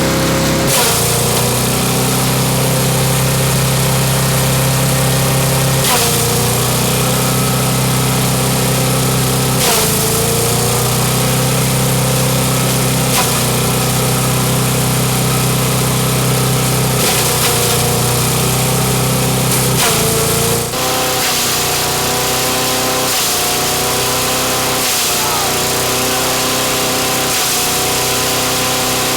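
Craftsman gas-engine chipper-shredder running steadily while it shreds herring into chum, its engine pitch sagging briefly every few seconds as it takes load. About two-thirds of the way through, the deep rumble drops away and the running sound turns lighter.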